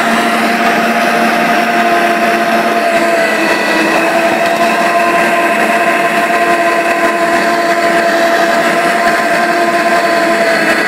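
Electric meat grinder running steadily, with a steady motor tone, while mincing hot chili peppers.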